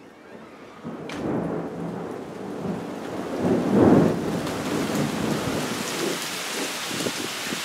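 Thunder: a sharp crack about a second in, then a deep rumble that builds to its loudest around four seconds and trails off. Heavy rain hisses steadily underneath and grows toward the end.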